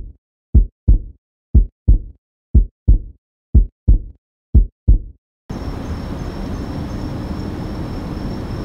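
Heartbeat sound effect: deep double thumps (lub-dub) about once a second, five beats, over dead silence. About five and a half seconds in it stops and a steady rushing road noise from the moving recording takes over, with a faint high whine.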